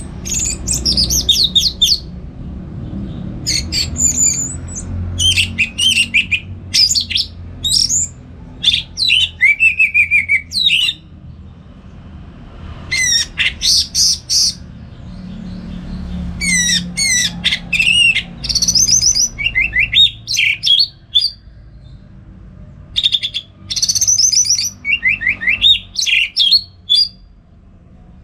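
Orange-headed thrush singing a loud, varied song: quick phrases of rapid sweeping notes, each lasting about a second, separated by short pauses, with longer lulls about a third and two thirds of the way through. A faint low hum runs underneath.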